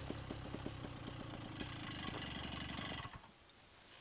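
Faint paramotor engine running with a regular pulsing beat, cutting off abruptly about three seconds in.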